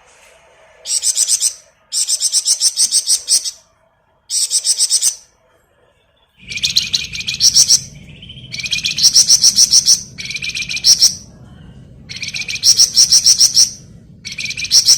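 Cagebird known in Indonesia as the flamboyan singing in its 'ngebren' style: bursts of very fast, drill-like, high-pitched trilled notes, each lasting about a second, repeated with short pauses. A low steady hum joins about halfway through.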